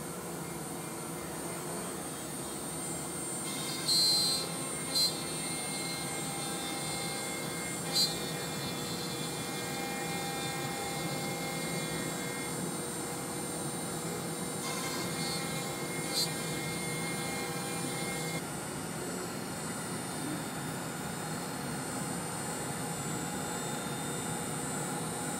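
CNC router spindle running with a steady high whine while its bit drills clearance holes into an MDF board, with several brief louder bursts in the first half.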